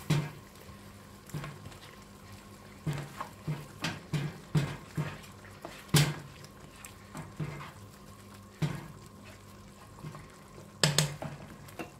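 Metal spoon stirring a thick coconut-milk curry stew in a frying pan: wet sloshing of the sauce with irregular knocks and scrapes of the spoon against the pan, the loudest knock about six seconds in.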